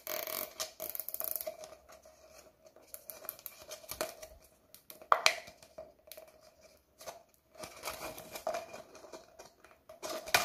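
Plastic cable tie being pulled tight through holes in a cut PET bottle, its ratchet clicking in a quick run near the start, with the thin PET plastic rustling and crinkling under the fingers.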